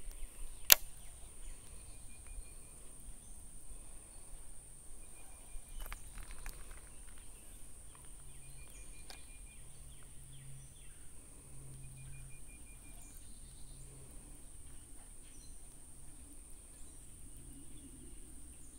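Faint outdoor ambience by a creek: a steady high buzz, and a short chirping trill that repeats every few seconds. One sharp click about a second in.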